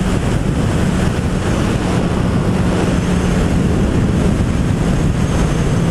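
Suzuki GSX-S1000's inline-four engine on its stock exhaust, running at a steady cruising speed, a low even engine note mostly buried under loud wind rushing over the microphone.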